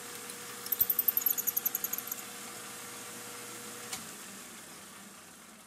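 Metal lathe running while a twist drill in the tailstock chuck bores through a large aluminium disc: a steady hum, with a fast rattle of sharp ticks, about ten a second, lasting over a second from about a second in. A click comes about four seconds in, and then the hum drops away and fades.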